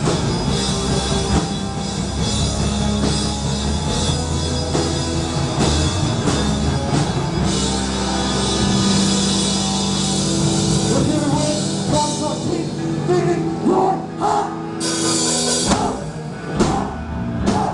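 Live punk band playing loud, with guitar, bass and a full drum kit. Near the end the steady playing gives way to separate sharp drum and cymbal hits.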